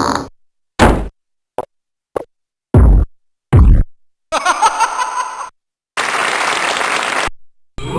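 Canned sound effects triggered one after another on a Videonics SE-1 sound effects mixer, each cut off into dead silence. First come five short pops and thumps, then a brief warbling, pitched effect, then a longer hissy, noisy effect.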